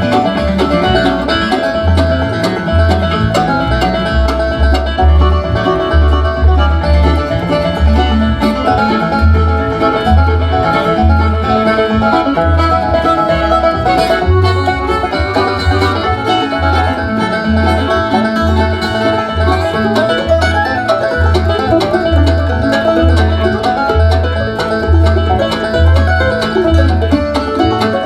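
Music played back through a TCL S642W 2.1 soundbar and its subwoofer, with a steady, deep, pulsing bass beat under it.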